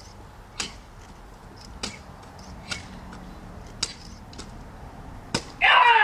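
Katana cutting a rolled target five times, each cut a short sharp sound about a second apart. Near the end, a loud shout from a single voice.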